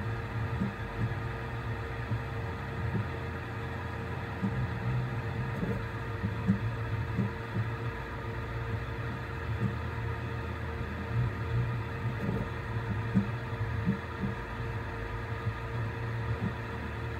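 Voron 3D printer printing: a steady hum and whir of its fans, with short low pulses from the stepper motors every second or so as the toolhead moves across the tiny layer.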